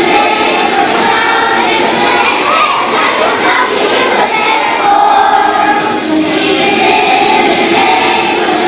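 Choir of young children singing together, many voices at once.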